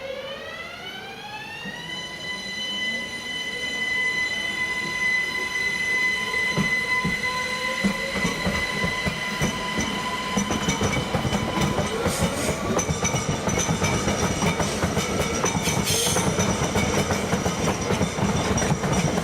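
A train moving through the station. A high whine rises in pitch over the first two seconds and then holds steady, under a growing rumble and clatter of wheels over the rails and points.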